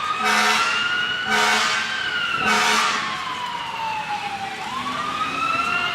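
Fire engine siren wailing with a slow rise and fall in pitch. Three short air-horn blasts about a second apart come in the first three seconds.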